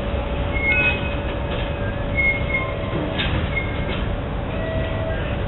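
Koki container flatcars of a freight train rolling slowly along curved track: a steady rumble with several short, high-pitched wheel squeals and a few knocks.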